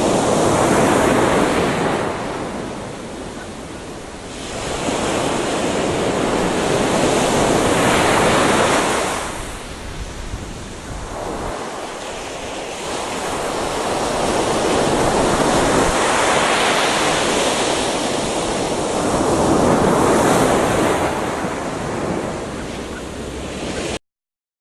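Gentle ocean waves washing onto a beach, the surf swelling and ebbing in slow surges every several seconds; the sound cuts off suddenly near the end.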